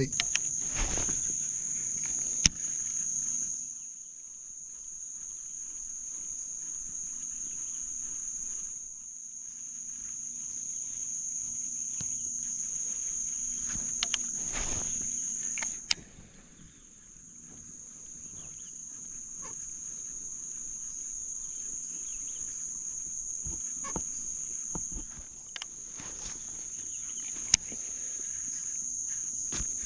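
Steady high-pitched insect chorus that fades briefly about halfway through and then returns, broken by a few sharp clicks and knocks.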